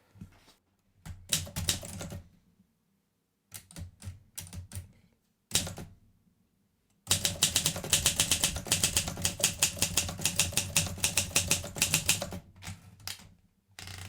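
Olympia SM4 manual typewriter: a few separate clicks and clunks of its mechanism, then a run of rapid, even typing, with type bars striking for about five seconds before a few last clicks.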